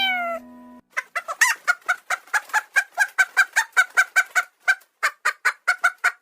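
A chicken clucking in a fast, even run of short clucks, about five a second, after a brief falling tone at the start.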